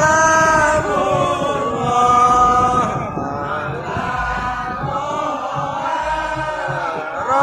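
A group of male voices chanting a sholawat, an Islamic devotional song, together in long held, slowly bending notes.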